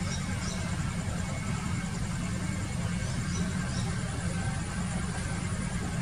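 Steady low engine-like rumble, with a few faint high chirps from small birds about half a second in and again around three and a half seconds in. The dove is not heard cooing.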